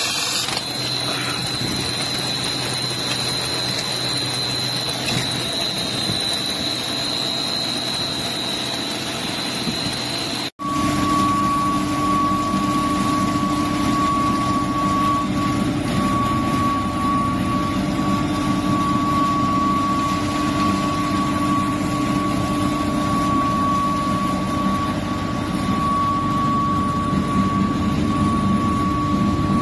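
Steady workshop machinery noise. About ten seconds in, after a brief break, a stainless-steel grinding mill runs loudly and steadily with a high, even whine as puffed sorghum-millet pellets are milled into fine powder.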